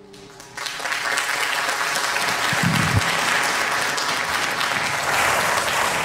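Studio audience applauding, starting about half a second in.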